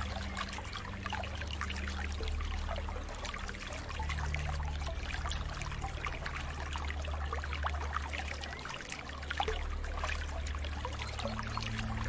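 Water flowing and trickling, with a constant patter of small splashes over a steady low rumble.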